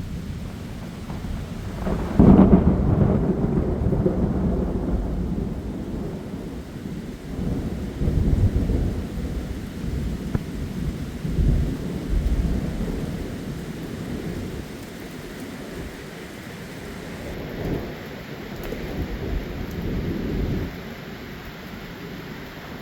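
Thunder over heavy rain. A loud crack of thunder about two seconds in rolls on into long low rumbles that swell again several times, over the steady hiss of the downpour.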